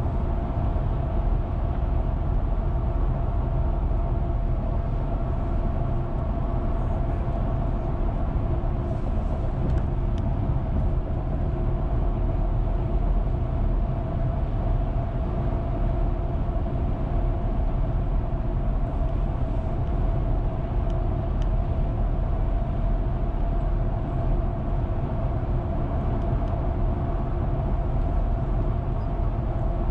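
Car cruising at a steady speed, heard from inside the cabin: a constant low rumble of road and tyre noise with a steady engine hum.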